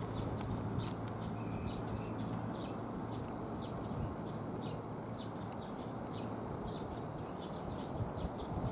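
Small birds chirping: short, high chirps several times a second over a steady low background hum.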